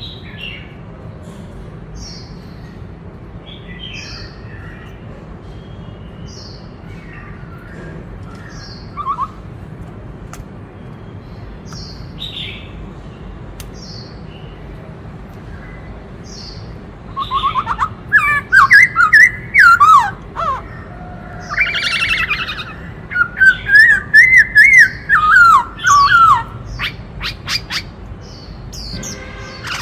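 Black-throated laughingthrush singing: short soft calls every second or two, then, a little past halfway, loud warbling phrases full of quick pitch swoops for several seconds, followed by a run of sharp clicking notes near the end.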